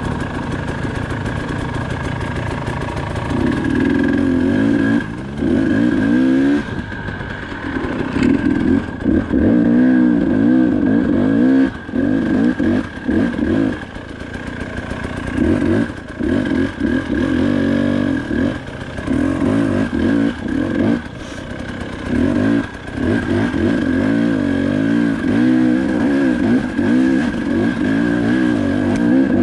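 KTM 300 XC-W two-stroke enduro engine under riding load, revved in repeated bursts that rise and fall in pitch, with brief drops off the throttle every few seconds. A steady high whine runs underneath.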